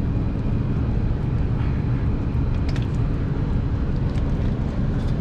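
Steady low rumble of a rooftop packaged AC unit running, with a few faint clicks from handling its wiring.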